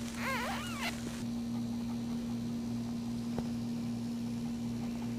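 A newborn puppy squeaks two or three times in the first second, each cry rising and falling in pitch. After that there is only a steady low hum.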